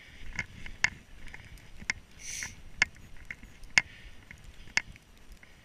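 Footsteps crunching in snow, a sharp crunch roughly once a second, with one short breathy rush of air about two seconds in.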